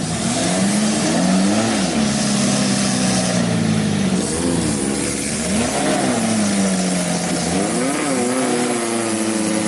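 Off-road jeep's engine revving up and down several times under load as it drives into deep mud, over a constant rushing noise.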